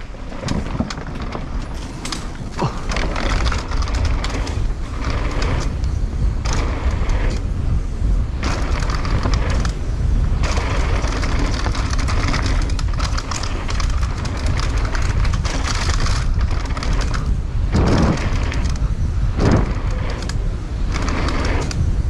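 Mountain bike descending a dirt trail, recorded on an action camera: wind buffets the microphone in a heavy low rumble, with tyre noise and the frame rattling and knocking over bumps.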